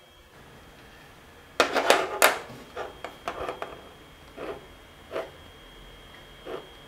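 Hands rustling and knocking among wiring and connectors behind an aircraft instrument panel: a quick cluster of rustles and light knocks about a second and a half in, then a few scattered quieter ones.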